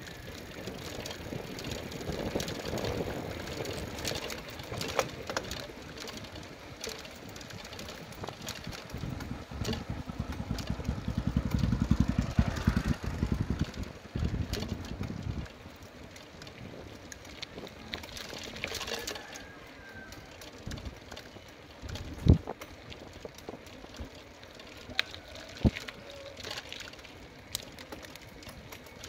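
Bicycle rolling along a concrete road: a steady rumble, heaviest from about ten to fifteen seconds in, with a couple of sharp knocks or rattles later on.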